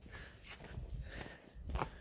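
Faint footsteps, with one plainer step near the end.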